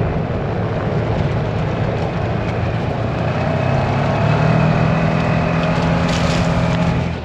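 Side-by-side UTV driving across a grass field: the engine runs steadily under spread tyre and wind noise, and the engine note rises a little about halfway through.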